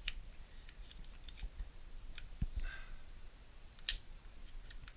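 Scattered small metallic clicks and taps of a Luger P-08 pistol's parts as the barrel and receiver assembly is worked forward on the frame by hand, with a sharp click about four seconds in.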